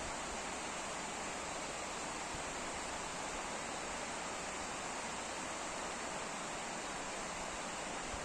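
Water rushing steadily at a small irrigation dam: an even, unbroken hiss.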